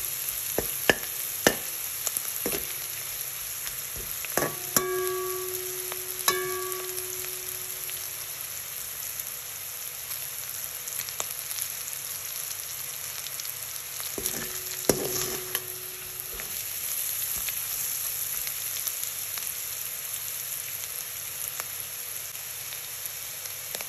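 Dried sprats, onion and green chilli sizzling steadily as they fry in oil in a stainless steel wok, with a metal spoon scraping and clicking against the pan. Three harder knocks of the spoon, about four and six seconds in and again near the middle, leave the pan ringing briefly.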